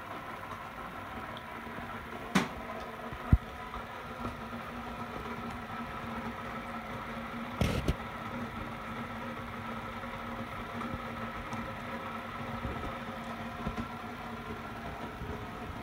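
Steady mechanical hum of a household appliance, broken by two sharp knocks about two and three seconds in and a brief clatter near eight seconds.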